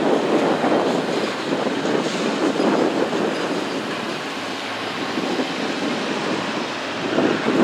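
Norfolk Southern freight train rolling past, a steady rumble of wheels on rail that eases a little midway and builds again near the end; no horn is sounding.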